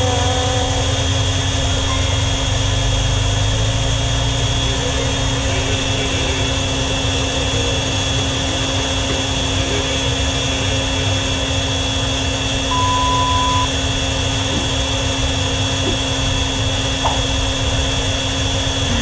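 Small electric oil transfer pump running steadily, pumping gear oil into a Nissan's rear differential.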